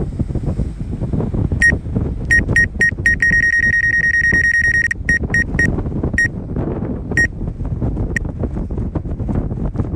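Strong wind buffeting the microphone in a steady rumble, overlaid with a drone controller's high electronic warning beeps. Single beeps start about two seconds in, a rapid run of beeping lasts nearly two seconds around the middle, and then scattered beeps thin out toward the end.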